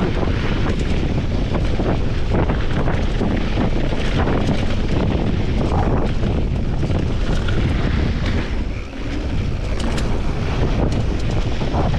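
Wind buffeting the action camera's microphone on a fast mountain-bike descent of a gravel trail, with the tyres crunching over loose stones and the bike rattling over bumps. The noise eases briefly about nine seconds in.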